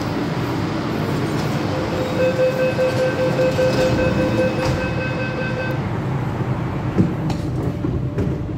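MTR Tung Chung Line Rotem EMU (K-Train) running at speed with a continuous rumble of wheels on rail. A steady whine comes in about two seconds in and holds for several seconds, and there is a single knock near the end.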